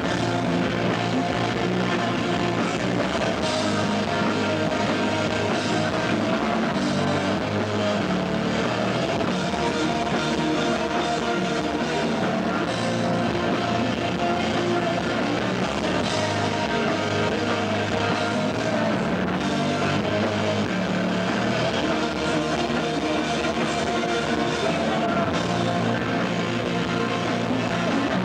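Rock band playing live with distorted electric guitars, bass and drum kit, with some singing, as a loud and steady full-band sound recorded from the audience.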